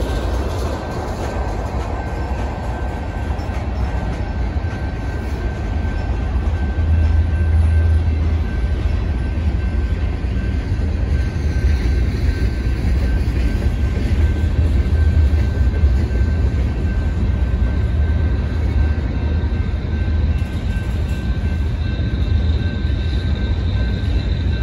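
Freight train cars rolling past: a steady, loud low rumble of wheels on rail, with a thin steady high tone throughout and another, higher tone joining near the end.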